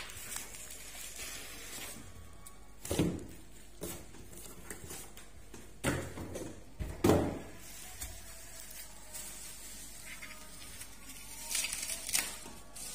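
Handling of a cardboard shipping box and the bubble-wrapped package taken out of it: a few scattered knocks and scrapes of cardboard, the loudest about seven seconds in, then crinkling of plastic bubble wrap being peeled near the end.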